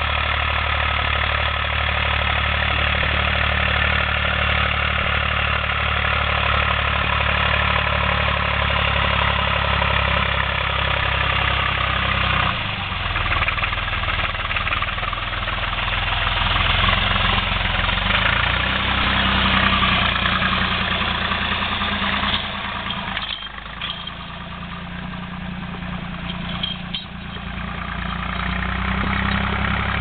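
IMT 549 DV tractor's diesel engine running steadily under load while pulling a two-furrow plough through the ground. It is loudest as the tractor passes close by midway and quieter after it, with a couple of short knocks in the second half.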